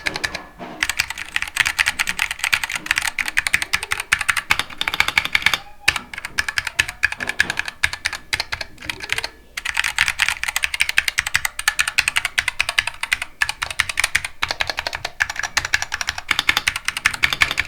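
Fast, continuous typing on a mechanical keyboard with Zealios v2 67g tactile switches in a Tofu 65 board: a dense run of key clacks with a few short pauses.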